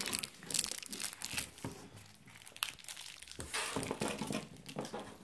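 Crinkling of toy packaging being handled, in short irregular crackles, quieter around the middle and picking up again near the end.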